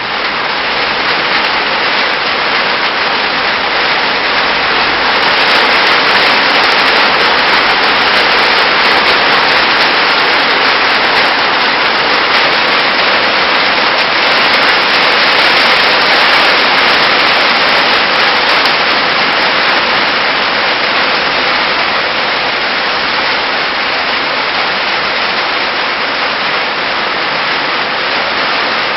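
Heavy rain falling, a loud steady hiss that swells a little in the middle and eases slightly toward the end.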